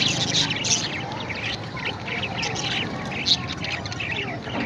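Parrots squawking and chirping, many short, overlapping calls in quick succession.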